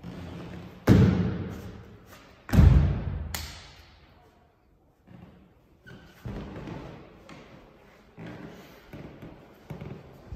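A series of heavy thuds, each fading slowly with a ringing tail: two loud ones about a second and two and a half seconds in, then softer thuds roughly once a second.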